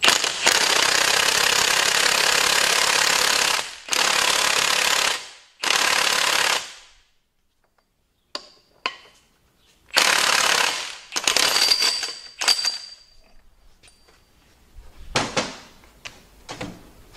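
Impact wrench hammering the nut onto the clutch shaft in bursts: one long run of nearly four seconds, then several short bursts of about a second, the last ending about 13 seconds in. Light clicks and clinks of tools near the end.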